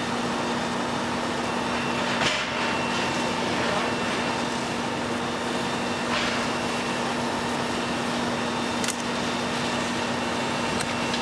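Steady drone of heavy diesel engines with a constant hiss, from the fire apparatus pumping the tower ladder's water stream and the demolition excavator at the rubble. A short knock about two seconds in.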